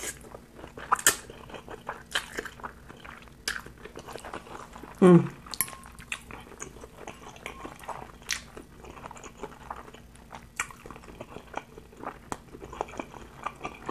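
Close-miked chewing and slurping of spicy instant noodles, with many short wet smacks and clicks of the mouth. About five seconds in comes a louder, brief voiced sound that falls in pitch.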